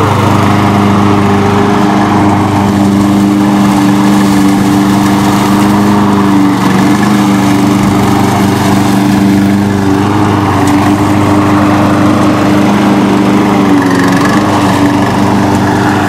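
Hybrid remote-control slope mower's small gasoline engine running steadily while the mower drives over and cuts grass. It is a loud, continuous drone with slight shifts in pitch as it moves.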